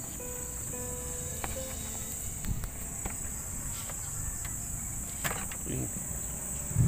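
Steady high-pitched insect chirring runs throughout, with a few sharp clicks and a low bump near the end from a hand working up under the vehicle.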